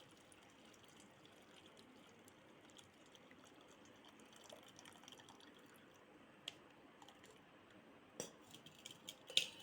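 Faint dripping and trickling of a hot herbal drink being filtered through a strainer into a vessel, with a few light clicks near the end.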